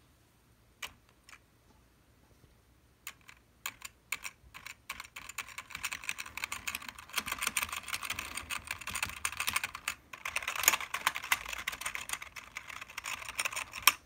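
Gaming keyboard being typed on and mashed: a few scattered key clicks, then fast, continuous key clatter from about five seconds in, with a brief pause near ten seconds. It is a clacking that the owner holds up as a bad-sounding keyboard.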